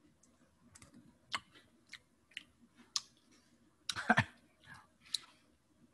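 Metal spoon clicking and scraping in a small bowl of truffle-mushroom sauce: a scattering of faint, light clicks, with a closer run of scrapes and clicks about four seconds in.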